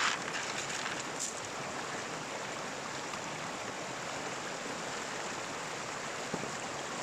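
Stream water running steadily, with a couple of light clicks near the start.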